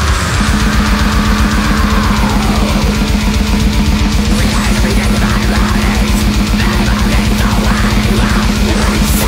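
Death/black metal recording: distorted electric guitars over a drum kit playing a dense, driving passage, with a note sliding down in pitch over the first few seconds.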